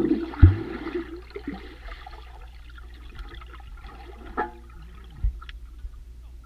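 Water heard from underwater as a swimmer moves: a muffled rushing and bubbling, with a few dull thumps, the loudest about half a second in.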